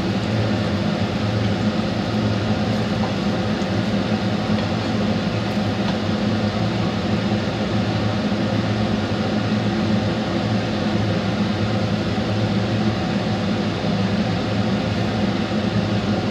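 A kitchen fan running steadily: a constant low hum under an even airy rush that does not change.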